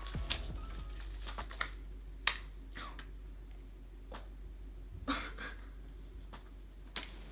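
Scattered sharp clicks and taps, about seven of them at irregular intervals over a steady low hum, from hands handling and opening an iPhone box.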